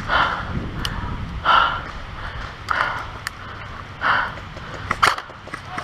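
Heavy breathing close to the microphone, about one breath every second and a half, with a few sharp clicks in between.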